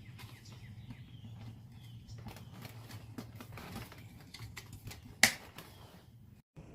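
Light clicks and handling noise from a push broom's plastic head and bracket being worked by hand, with one sharp, loud snap about five seconds in.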